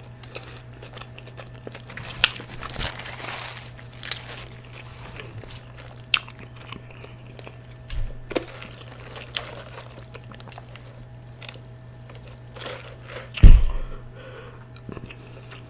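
A person chewing food close to the microphone, with wet open-mouth smacking and scattered short clicks. One louder, short, low sound comes about thirteen seconds in.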